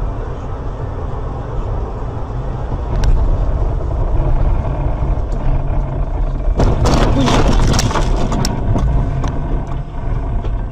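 Road and engine noise inside a car driving on a snowy highway, a steady low rumble. About two-thirds through comes a burst of rough, crackling noise with sharp knocks, then a few single knocks, as a skidding car slides in close.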